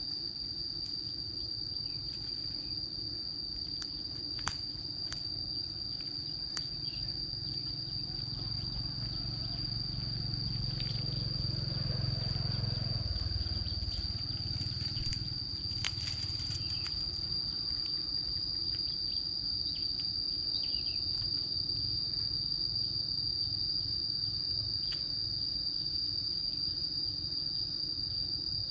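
Insects droning in one steady, unbroken high-pitched tone. Scattered crunches and snaps of footsteps on dry leaves and bamboo litter can be heard, most of them in the first half.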